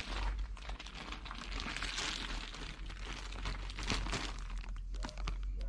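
Clear plastic parts bag crinkling as it is handled in a gloved hand, a dense, irregular crackle.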